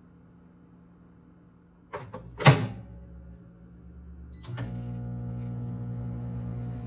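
A couple of clicks and a loud clunk like a door shutting. About two seconds later comes a brief beep, then an appliance motor starts and hums steadily with a slight flutter.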